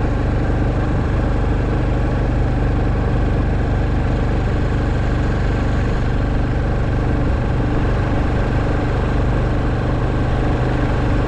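Honda Super Cub 110's single-cylinder four-stroke engine running at a steady note while the bike is ridden, with road and wind noise.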